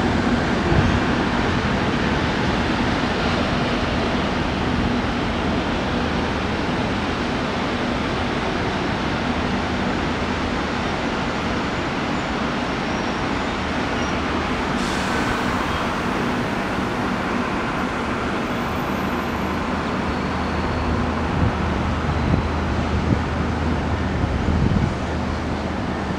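Train moving through the rail yard at a distance: a low steady engine hum under a constant rushing background that grows a little stronger near the end.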